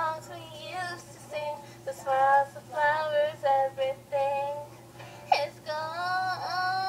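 A young girl singing in a series of short phrases, then a long held note near the end, played back from a webcam video through computer speakers over a steady low hum.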